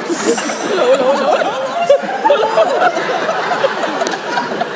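Audience laughing, many voices at once.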